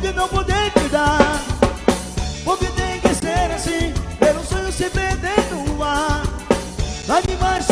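Forró band playing live, an instrumental break between sung lines: a driving drum kit with snare and rimshot hits and a steady bass under a wavering melodic lead line.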